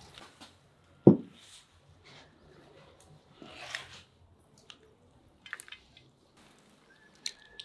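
Cooked meat and vegetables being handled in a ceramic serving bowl, with one sharp knock about a second in, wet squishing and small clicks, and a faint thin whistle near the end.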